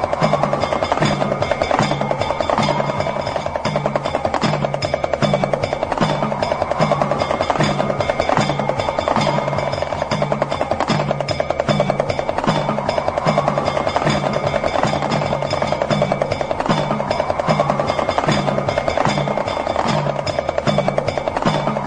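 Percussion music built on a damru, the small hourglass hand drum, rattled in a fast unbroken roll over a steady low drum beat. A pitched swell rises every few seconds, with a few steady ringing tones held above.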